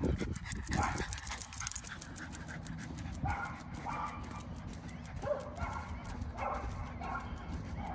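A dog making short, repeated vocal sounds in quick bursts about half a second to a second apart, with a louder sound in the first second, over a steady low background rumble.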